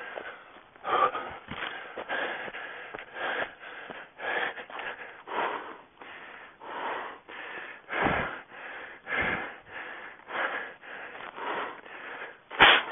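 A running orienteer's hard, wheezing breathing, one noisy breath about every second, close to a small body-worn camera's microphone. There are a few dull thumps of footfalls in the forest undergrowth, and a sharp knock near the end is the loudest sound.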